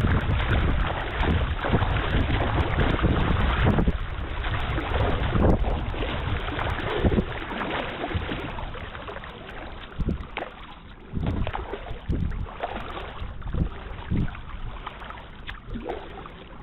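Wind buffeting the microphone over water lapping at a kayak's hull on choppy water. The wind eases about halfway through, leaving a series of separate splashes.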